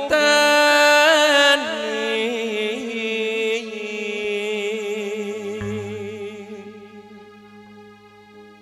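A male singer draws out one long, wavering, ornamented note of a slow Javanese tembang, loud at first and then fading away over several seconds. A low steady tone comes in about five seconds in.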